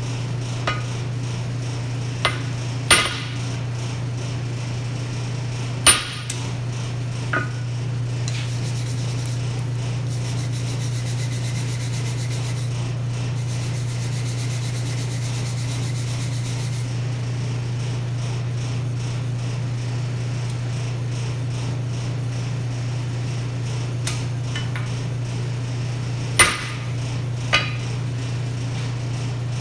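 A few separate hammer blows on red-hot 5160 steel on an anvil, forging the knife blade's taper, spread out with long gaps between them. A steady low hum from the coal forge's blower runs under them.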